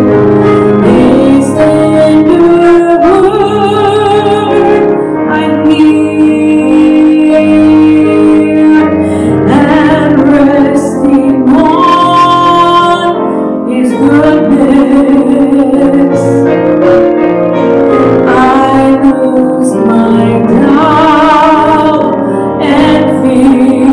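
Music: a woman singing with vibrato over piano accompaniment.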